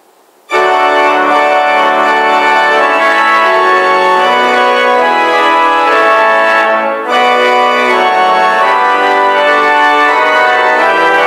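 Organ played in slow, held chords. The chords start about half a second in, with a short break between phrases about seven seconds in.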